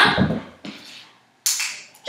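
German Shepherd puppy dropping onto its side on a hardwood floor: a dull bump and scuffing of its body and claws, with a sudden sharp scrape about one and a half seconds in.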